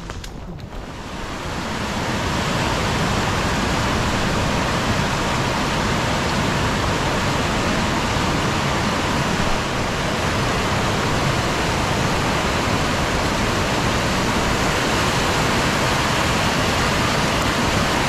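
Swollen, muddy mountain stream rushing in a steady wash of white-water noise, fading in over the first two seconds and then holding level.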